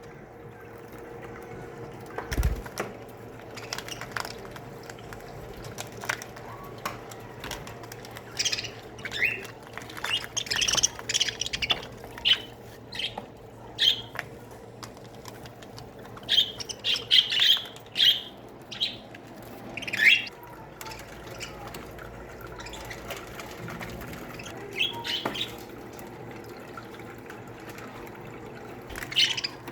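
Budgerigars chirping and chattering in scattered short bursts, busiest around the middle, with a few sharp clicks over a steady low hum.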